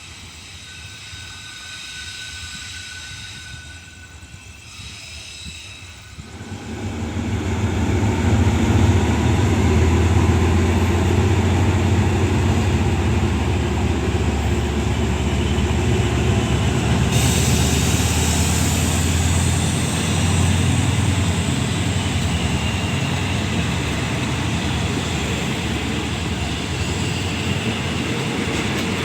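Diesel train running through the station: its low engine rumble swells in about six seconds in and stays loud, with a hiss of wheels on rail joining from about seventeen seconds.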